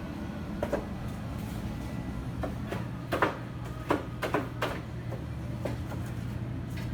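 Steady low machine hum with a string of short, sharp knocks and clacks, about seven of them, the loudest near the middle.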